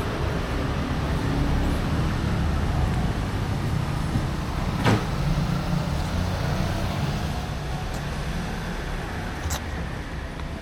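Steady low rumble of road traffic, with a sharp click about five seconds in and a fainter one near the end.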